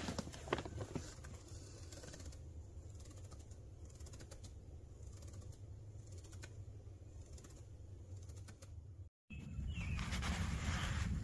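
Soft rustling and small clicks of sleeping-bag and hammock fabric as a person settles in, then a faint, steady low rumble. After a sudden break near the end, the low rumble is louder and a bird chirps briefly.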